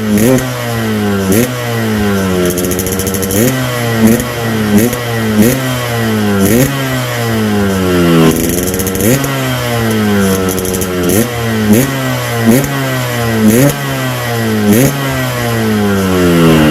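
Yamaha RX-King two-stroke motorcycle engine revved in repeated short blips, about one a second, each rising sharply in pitch and falling away, through an exhaust muffler that has been gutted and reworked for a crisp, raspy 'garing ngorok' note.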